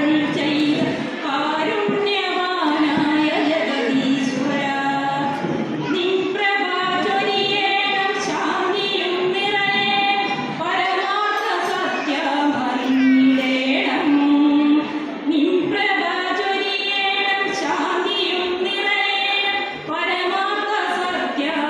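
A woman singing an unaccompanied prayer song into a microphone, with long held, wavering notes: the invocation that opens the function.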